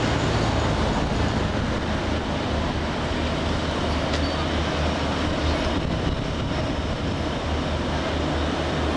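Diesel railcar train with its engine running: a steady low throbbing rumble.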